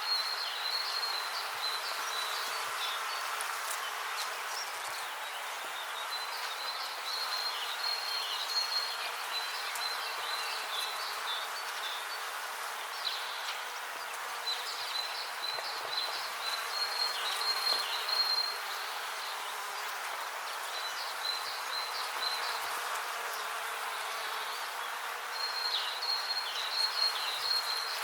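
Bees buzzing in a steady hum, with bouts of high, rapid chirping trills that come and go every few seconds over it.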